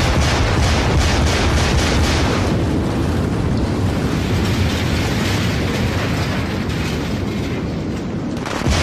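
Building implosion of the Stardust Hotel tower: a rapid string of demolition charges going off, crackling over a deep rumble, then the steady heavy rumble of the collapse. A fresh burst of blast noise starts near the end.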